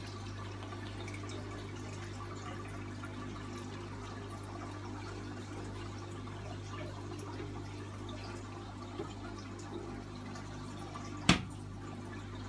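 Aquarium filter running: a steady low hum with water trickling and bubbling. One sharp knock comes near the end.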